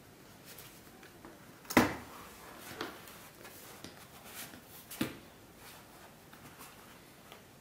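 Thick leather being handled during hand-stitching, with rustling and the thread drawn through the seam. Two sharp knocks stand out, the louder a little under two seconds in and another about five seconds in.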